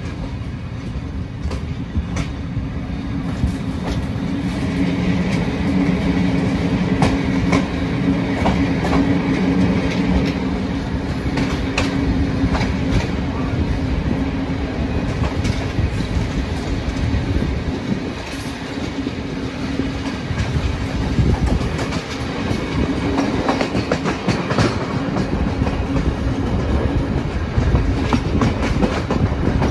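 A train moving along the track, its wheels clicking over the rail joints, over a steady low hum.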